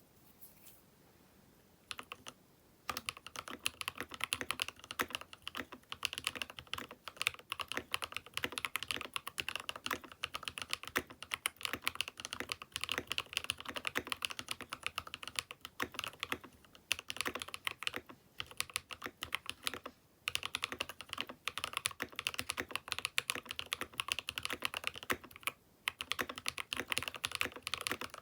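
Typing on a Keychron K6 Pro mechanical keyboard: a fast, dense run of key clacks that starts about three seconds in, broken by a few short pauses.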